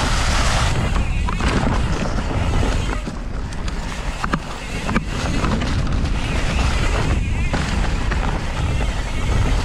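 Ripmo V2 mountain bike riding fast over leaf-covered dirt singletrack, heard from a camera mounted right behind the rear shock: heavy wind rumble on the microphone and tyre noise, with a few sharp knocks from the bike over bumps.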